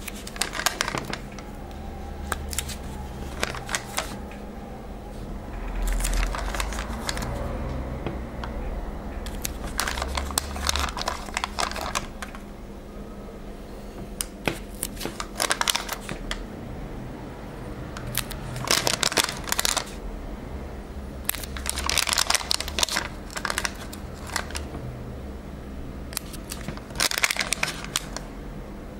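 Glossy sticker sheet being handled and stickers peeled off its backing: short bursts of crinkling and crackling every few seconds, over low handling rumble.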